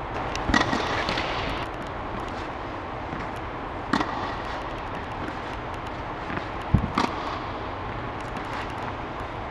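Tennis balls struck by a racket during a hitting drill: three sharp hits about three seconds apart, the last one just after a dull thump, over a steady background hiss.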